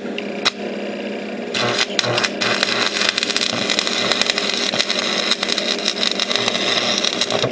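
Stick-welding arc crackling and sizzling as an E6013 rod burns. It starts about a second and a half in, after a couple of sharp clicks, and stops near the end. A steady hum runs underneath.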